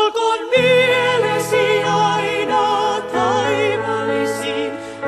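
Finnish gospel song sung by women's voices with vibrato over a low sustained instrumental accompaniment. The singing comes in right at the start after a short pause.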